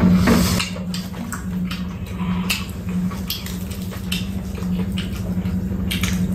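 Eating at a table: short clicks of spoons and chopsticks against bowls, with sipping and chewing, over a steady low hum.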